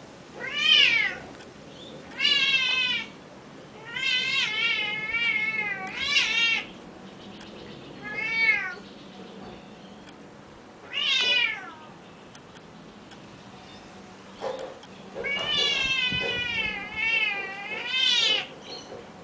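Burmese cat meowing repeatedly at birds: a series of long, drawn-out calls, several with a wavering, warbling pitch, the longest lasting two to three seconds.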